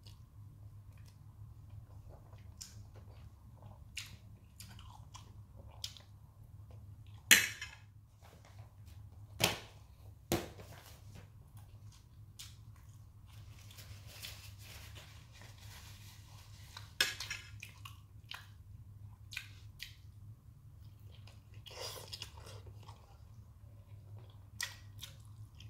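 Close-up chewing of spicy instant noodles and fried egg, with scattered small clicks and a few louder sharp knocks, the loudest about seven seconds in.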